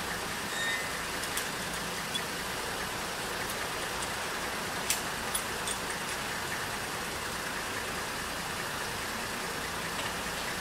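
Tow truck engine idling steadily while a car is hitched up for towing, with a few short sharp clicks, the loudest about five seconds in.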